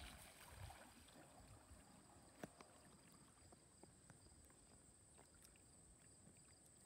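Near silence: faint outdoor ambience with a steady faint high-pitched tone and a few faint ticks. The radio-controlled boat's motor is no longer heard.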